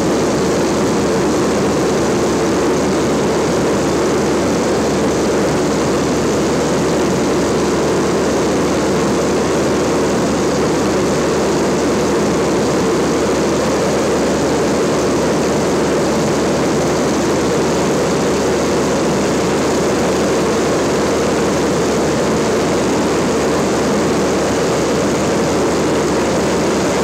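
Steady drone of a light propeller aircraft in cruise, engine and airflow heard from inside the cabin.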